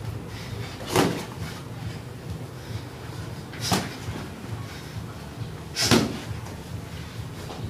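Three sharp impacts from a bare-room fist fight, about a second, nearly four and six seconds in, over a steady low hum.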